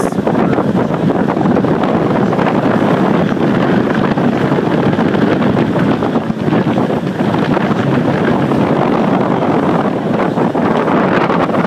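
Steady wind rushing over the microphone aboard a moving boat, a loud even noise that hardly changes.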